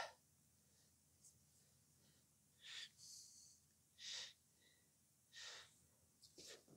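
Near silence with a few faint breaths, about four short puffs roughly a second apart.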